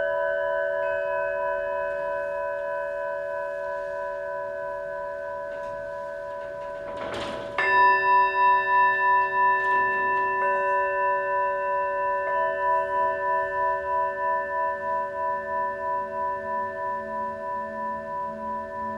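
Tibetan singing bowls ringing in long, slowly fading tones. About halfway through a bowl is struck and rings out with a pulsing wobble, and another bowl or two join a few seconds later, their tones overlapping.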